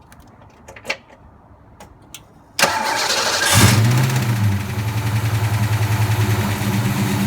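A few light clicks, then about two and a half seconds in the 1989 Ford Mustang LX's 5.0 V8 cranks on the starter, catches with a brief rise in revs and settles into a steady idle. It runs with the accessory belt off, and the bad noise is gone, which shows the alternator as the source of that noise.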